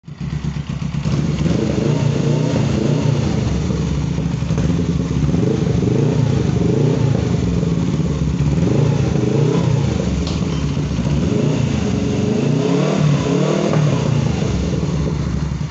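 Suzuki GS500F's parallel-twin engine running through a Chinese Akrapovic-replica universal slip-on muffler with its dB-killer baffle removed, revved up and down repeatedly. The owner likes the sound better this way.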